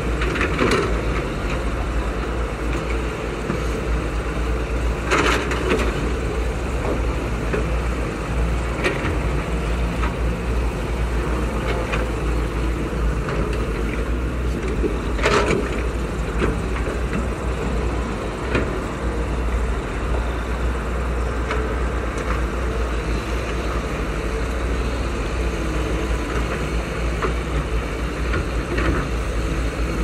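Diesel engines of Caterpillar hydraulic excavators running steadily under load while digging rocky soil. A few sharp knocks come from the buckets against rock, the loudest about five seconds in and about fifteen seconds in.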